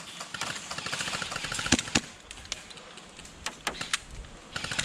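Airsoft guns firing: scattered sharp single shots, with a short rapid burst about a second in.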